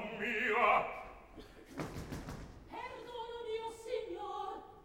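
Opera singers' voices in sung dialogue, broken by a single thump about two seconds in.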